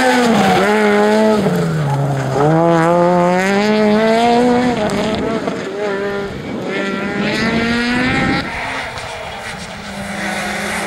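Peugeot 208 R2 rally car's naturally aspirated 1.6 VTi four-cylinder engine at high revs. The revs fall about two seconds in, then climb twice with a break for a gear change between. Near the end the engine note is quieter and steadier.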